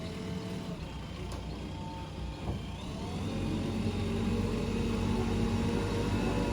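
JCB 3DX backhoe loader's diesel engine running, then revving up and getting louder about three seconds in. A single short clunk comes just before the rev.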